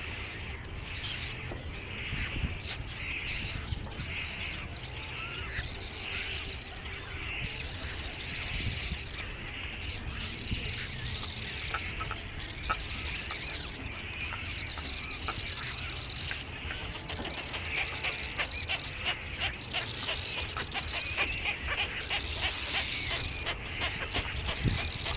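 Many small birds chirping and twittering, with repeated short call notes at first and quicker, denser chirping in the last third, over a low background rumble.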